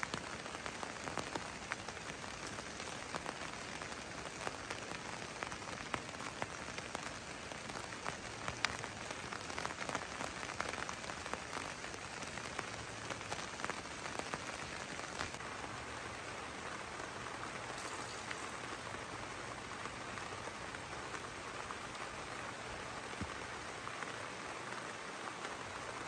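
Steady rain falling on a tent's fabric, with individual drops ticking sharply now and then.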